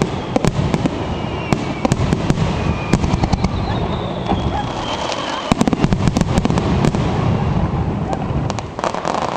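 Aerial fireworks going off in quick succession: a dense run of sharp bangs and crackles over a continuous rumble, with faint falling whistles in the middle.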